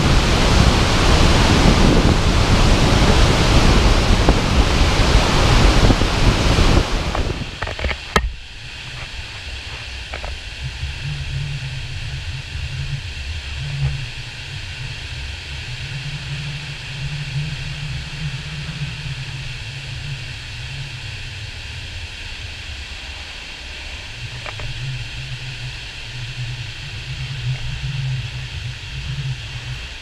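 Dettifoss waterfall: a loud, steady roar of falling water, which drops abruptly about eight seconds in to a much quieter, steady rush with a low rumble that comes and goes.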